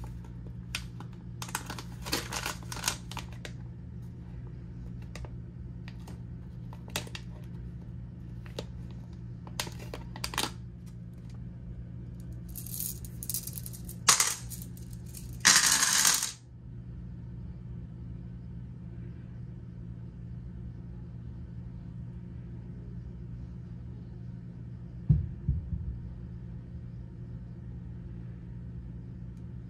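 A foil pouch crinkling as it is handled and opened, then a short jingling clatter of small cast silver bars tipped out of it into a hand about halfway through. Near the end, a few light clinks of the bars against each other, over a steady low hum.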